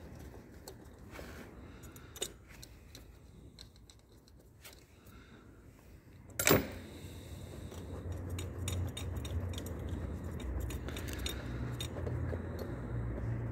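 Small metallic clicks and clinks of hands and tools working at a diesel engine's injectors and their wiring connectors, with one loud sharp clank about halfway through. A low steady hum comes in after the clank.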